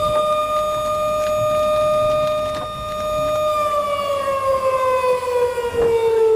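Outdoor tornado warning siren sounding, a single loud wail held at a steady pitch, then slowly winding down in pitch from about halfway through.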